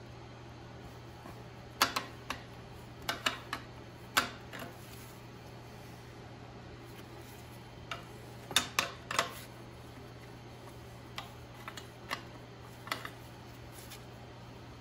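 Sharp metallic clicks and taps in scattered small clusters as a wrench and the flared fuel-line fitting are worked against the fuel pump of a Mercruiser 260 (Chevy 350) engine to get the line started, over a steady low hum.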